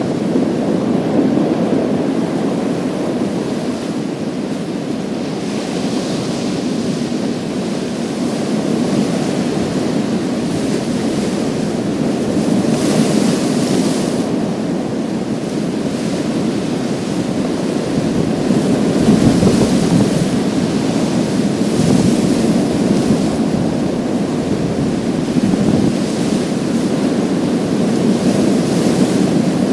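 Sea waves breaking and washing over a pebble beach: a steady low rush of surf, with hissing surges every few seconds as each wave runs up and drains back through the stones.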